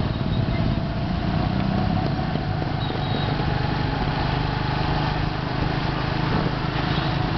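Small motorcycle engine running steadily while riding along at even speed, with wind and road noise.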